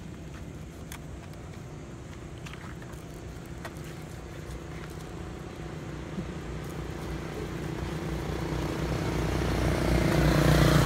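A small motorbike engine running steadily, with road traffic growing louder and passing close by near the end.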